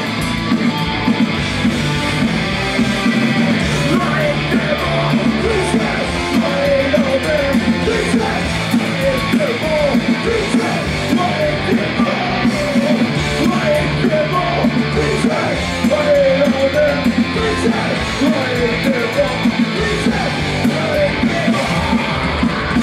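Punk rock band playing live: electric guitars, bass and drums with a singer's vocals over them.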